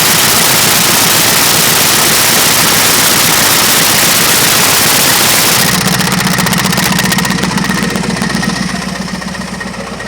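Yard wrecker's engine running with a rapid, loud knock. The first half is a dense, loud roar; about six seconds in it changes to a buzzing, rattling knock that gradually gets quieter. The owner says the louder knock is new, sounds like something trying to fall off, and doesn't sound good.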